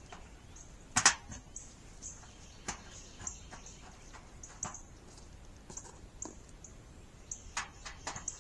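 Scattered clicks and knocks of metal raised-bed parts and hardware being handled, the loudest a sharp clack about a second in and a quick cluster near the end. Short high chirps repeat faintly behind them.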